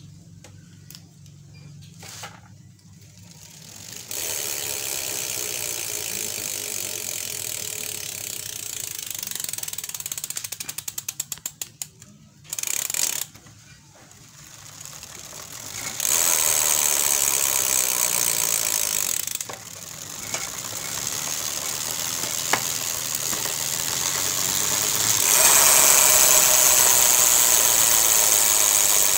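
Bicycle rear freehub (Pacific, cup-and-cone ball bearings) clicking as the rear wheel freewheels. It has been upgraded with stiffer 1.2 mm pawl springs to make its cricket-like ratchet sound louder. The clicking comes in spells: a fast buzz that slows into separate ticks and stops about twelve seconds in, then louder spells, the loudest near the end.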